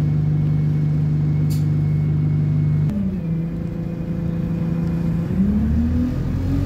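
A bus's diesel engine heard from inside the saloon, idling steadily, with a click and a shift in tone about three seconds in, then rising in pitch as the bus pulls away from about five seconds in.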